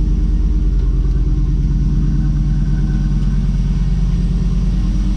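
Third-generation Chevrolet Camaro's V8 engine idling steadily with an even low pulsing beat, just after a jump start and left running to charge its batteries.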